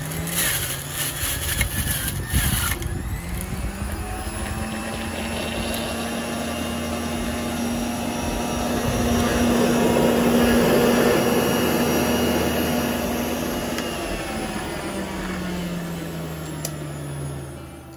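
Electric centrifugal juicer motor starting up and running while star fruit (carambola) is pushed down the chute and shredded. There is a rough grinding for the first few seconds, then a steady whine. Its pitch falls over the last few seconds as it winds down.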